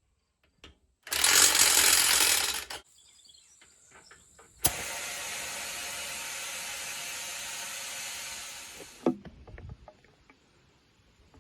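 Compressed air hissing from an air hose while a tire is aired up: a loud blast of under two seconds about a second in, then, after a sharp click, a steadier hiss for about four seconds that tapers off, followed by a few light knocks.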